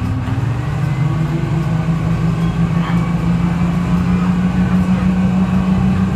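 Detroit Diesel 6V71 two-stroke diesel of a 1970-71 GMC T6H-5305A 'New Look' bus running at a steady, constant pitch, with a deep hum and its whine over the top.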